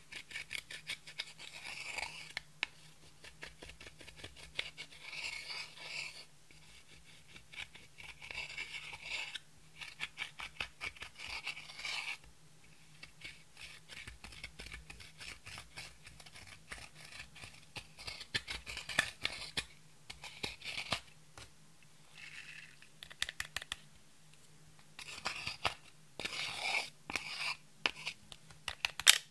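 Pressed powder eyeshadow being crushed and scraped in its palette with the tip of a dotting tool: bouts of fine scratching and crackling, each a second or two long, with short pauses between.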